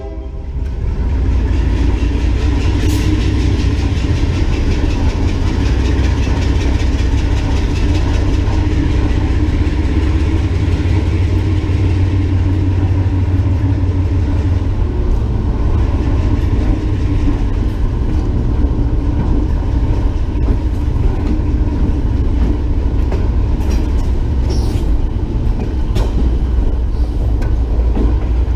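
Diesel locomotive running steadily along the track: a low engine rumble with wheel-on-rail noise and occasional clicks over the rail joints.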